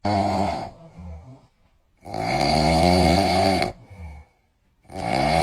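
An adult snoring loudly: three snores with short pauses between them, the second the longest and the third starting near the end.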